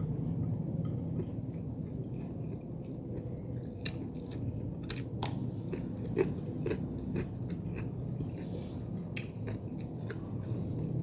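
A person chewing and biting food close to the microphone, with scattered crisp crunches and mouth clicks, the sharpest about five to six seconds in. A steady low hum runs underneath.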